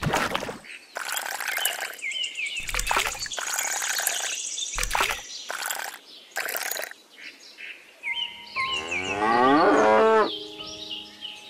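A cow mooing once, loudly, for nearly two seconds with a falling pitch, near the end. Before it come several short bursts of harsh, rasping noise, with small birds chirping.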